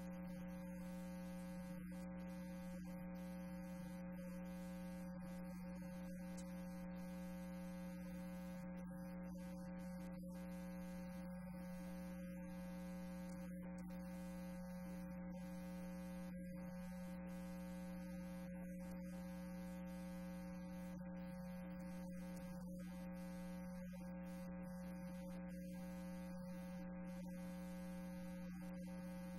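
Steady electrical hum: a constant low tone with a stack of fainter higher tones above it, unchanging.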